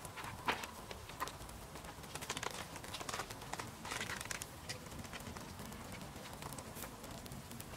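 Steaks grilling on a wire rack over charcoal embers: faint, irregular crackles and pops from the fire and the dripping fat, with a few louder clusters of pops.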